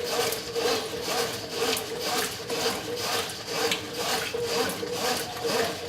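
Brastemp top-loading washing machine agitating a full tub of water and laundry: rhythmic swishing at about two strokes a second over a steady motor hum.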